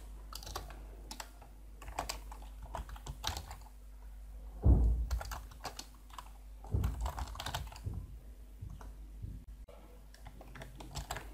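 Typing on a computer keyboard: irregular key clicks as code is typed, with two louder low thumps around the middle.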